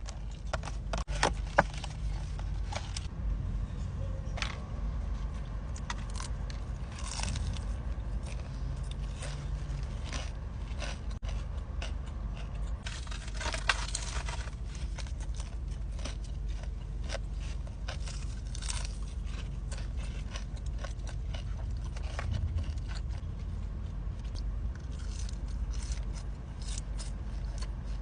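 Close-miked eating: crunchy bites and chewing, heard as many short crackling clicks and scrapes over a steady low hum.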